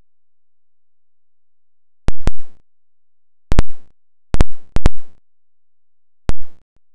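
A handful of loud, sharp knocks close to the microphone, in short clusters about two, three and a half, four and a half, and six seconds in, with quiet between them.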